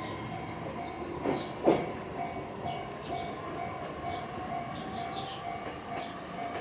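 JR Kyushu 819 series DENCHA battery-electric train moving slowly past, with a steady tone under it. Two sharp knocks come under two seconds in, the second one loud.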